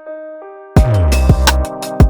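Background music: soft sustained keyboard notes, then about two-thirds of a second in, a loud beat drops in with deep bass and sharp drum hits.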